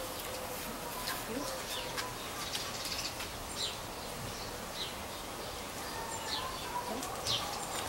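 Outdoor garden ambience with small birds chirping now and then in the background.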